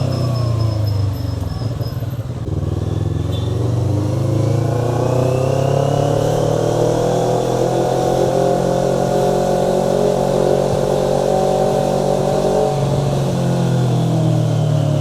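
Motorcycle engine running under way: its pitch dips, then climbs steadily over several seconds as it accelerates and holds high before changing again near the end.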